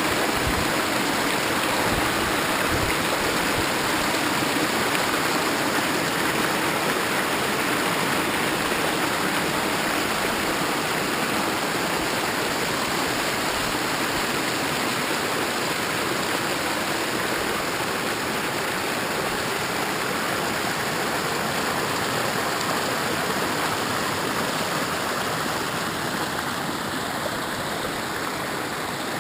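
Waterfall: a steady rush of falling water that grows slightly fainter toward the end.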